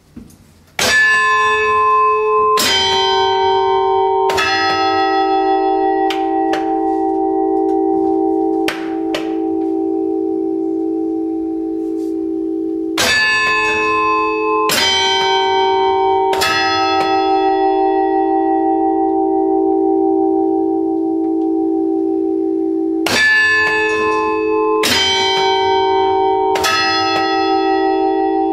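Single church bell struck while hanging still, in groups of three strokes about two seconds apart, each stroke ringing on with a deep hum under bright overtones. The groups repeat roughly every ten to twelve seconds, with the bell still sounding in between.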